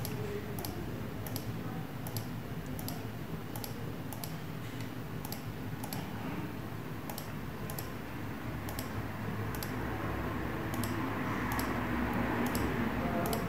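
Computer mouse clicking again and again, roughly one click a second, as options are picked from dropdown menus, over a faint low room hum.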